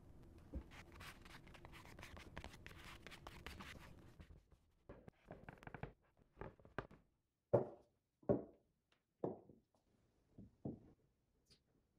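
A cloth scrubbing a white finish onto a faceted wooden candle holder in quick rubbing strokes. Partway through, this gives way to wooden candle holders being set down on a wooden tabletop: a series of separate knocks and bumps, the loudest a little past halfway.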